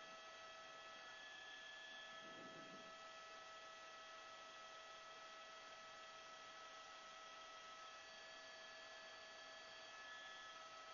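Near silence: a faint steady electrical hum in the audio feed, several thin unchanging tones over a low hiss.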